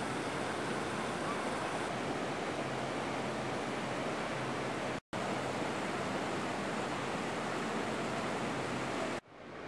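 Steady rushing of running water, the artificial stream cascading over rocks in an indoor tropical garden. The sound breaks off for a split second about halfway through and drops away sharply near the end.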